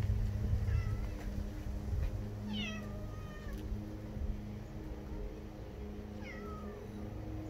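Cat meowing: a faint call about a second in, a clearer meow that falls in pitch around two and a half seconds in, and another falling meow near the end, over a steady low hum.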